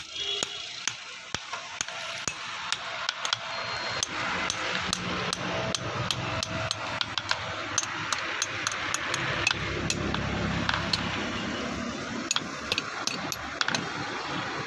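Blacksmith's hammer striking metal again and again at an irregular pace, with a steady noise and low hum rising under the strikes from about four seconds in.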